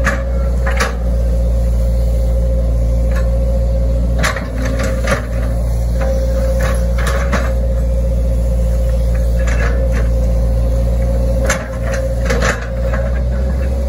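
Hitachi Zaxis 110 excavator's diesel engine running steadily with a steady whine over it, heard from the operator's seat. Sharp clunks and knocks come now and then as the arm and bucket move, in clusters about four seconds in and near the end.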